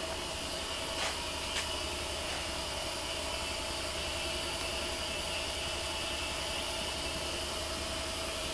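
Steady mechanical hum and hiss with an even tone running through it, with two light clicks about a second and a second and a half in.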